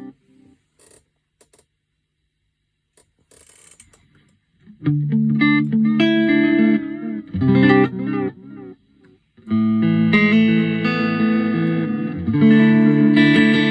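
Electric guitar, a Fender Road Worn Player Stratocaster, played through a T-Rex Reptile delay pedal into a Roland JC-40 amp. After about four seconds of near silence, a phrase of single notes starts, breaks off briefly, and then gives way to held, ringing chords.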